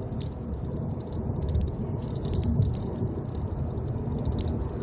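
Cabin noise of a 2015 Volkswagen Golf GTI at speed: a low rumble from the road and its 2.0-litre turbocharged four-cylinder, with a rapid patter of small rattles and clicks over it.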